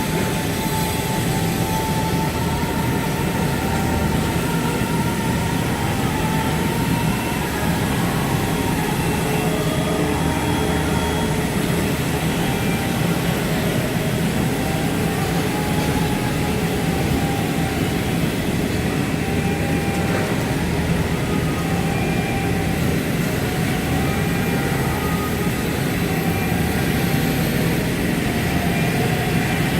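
Automatic CAM fabric-cutting machine running: a steady mechanical drone with a low hum and a faint whine that rises and falls over and over.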